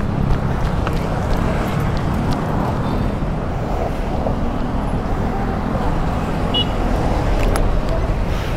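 Steady road traffic noise: car and motorcycle engines running and passing, with a constant low rumble.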